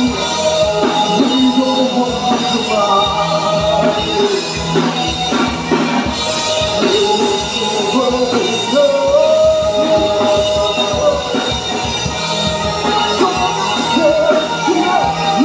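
Live rock band playing: a singer singing over electric guitars and a drum kit.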